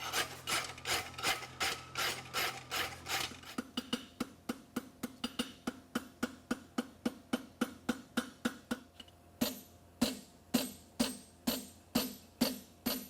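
Steel horseshoe's outside edge being dressed by hand with an abrasive block, a steady run of quick back-and-forth scraping strokes, about three a second, that turn longer and slower, about two a second, near the end.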